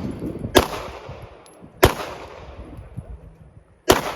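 Three single shots from a 9mm Glock 17 pistol, spaced unevenly a second or two apart, each trailing off over about a second.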